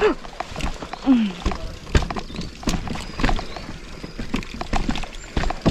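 Mountain bike clattering over a rocky trail: irregular knocks and rattles from tyres and frame hitting stones, over a low rumble of wind on the microphone, with a short vocal exclamation near the start and another about a second in.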